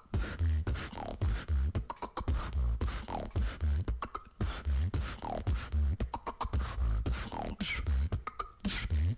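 A female beatboxer performing a beat: deep bass kicks and sharp snare and hi-hat clicks in a steady rhythm, with a short falling sweep about once a second.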